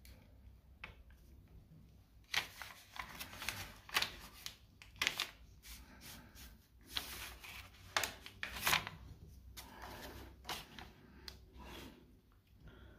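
A4 paper rustling and crinkling as it is folded and creased by hand along a ruler's edge: a string of irregular short crackles and rustles beginning about two seconds in.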